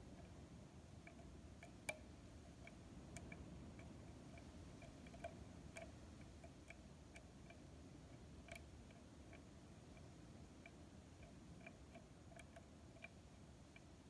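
Faint, irregular small clicks of a hook pick tapping and lifting spool pins inside a padlock's cylinder while a tension wrench holds the plug, with one sharper click about two seconds in.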